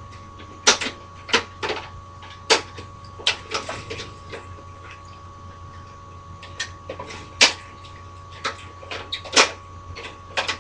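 Irregular sharp plastic clicks and snaps, about fifteen, from an Xbox 360's plastic casing as its clip-on covers are worked loose by pushing the tabs through their holes. A steady electrical hum runs underneath.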